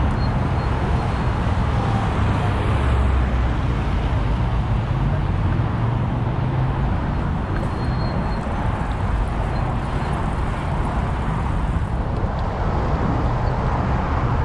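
City street traffic: a steady mix of car engines and tyre and road noise, heaviest in the low rumble.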